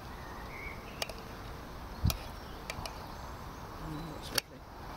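Knife and fork clicking against a plate a few times while food is cut, with a dull thump about two seconds in, over steady outdoor background noise.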